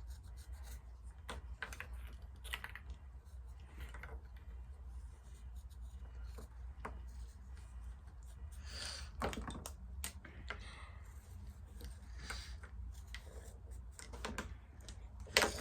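Scattered light clicks, taps and rustles of hands handling a piece of felt and craft tools at a table, with a few sharper knocks, over a steady low hum.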